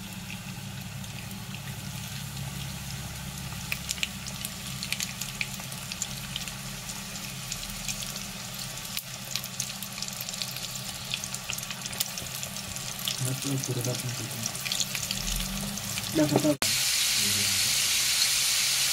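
Chicken pieces coated in maize flour deep-frying in hot oil: a steady sizzle with scattered crackles and pops. About three-quarters of the way through it cuts sharply to a louder, denser sizzle as a pan full of pieces fries hard.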